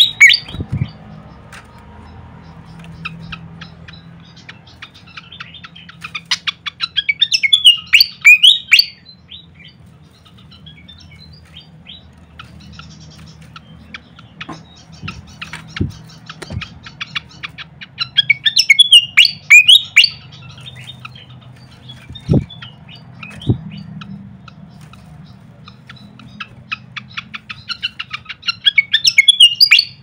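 Caged pied fantail singing: three bursts of rapid, high twittering song about ten seconds apart, with scattered chirps between them. A few short low thumps come in between the songs.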